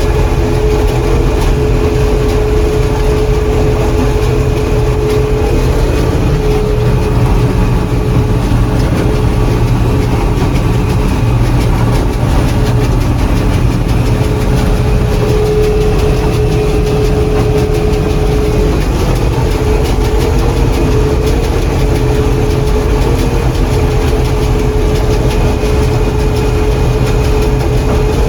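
John Deere 4400 combine running while harvesting corn: a steady heavy rumble of engine and threshing machinery with a steady whine over it.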